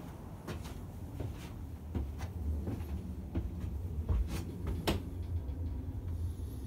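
Scattered light knocks and clicks over a low rumble: footsteps and handling noise as someone moves about inside a cargo trailer with a wooden floor.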